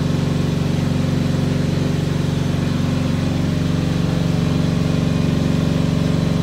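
An engine running steadily, a low even hum that neither rises nor falls.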